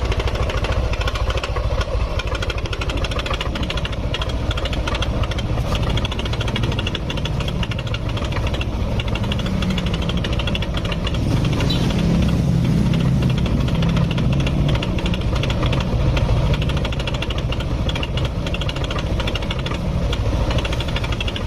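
Yamaha NMAX scooter engine running with a noisy, rhythmic knocking tick from the cam chain, a little louder between about 12 and 17 seconds in. The mechanic is certain this sound means a worn cam chain tensioner.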